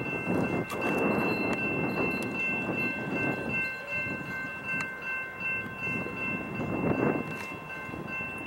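Freight train rumbling past a railroad grade crossing while the crossing bell rings steadily in a high, pulsing tone, with a few sharp clanks from the train.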